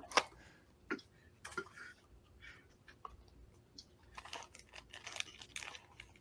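Packaging being handled and opened: scattered crinkling, rustling and small clicks, coming in irregular clusters.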